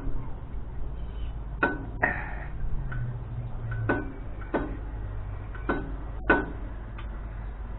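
Hand socket ratchet being swung on a water pump bolt, giving single sharp clicks every half second to a second, with a short scrape after the second click.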